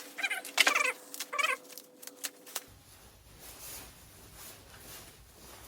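A cat meowing three short times in quick succession during the first second and a half.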